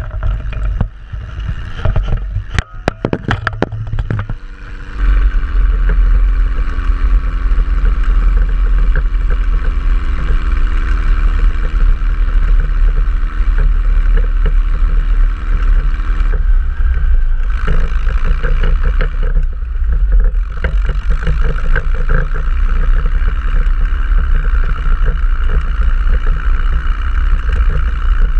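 A 1971 Thiokol snowcat's engine running as it drives over snow, heard close up from its hood. It is quieter for the first few seconds, broken by a few sharp knocks. About five seconds in it grows much louder and holds steady, with two brief drops a little past the middle.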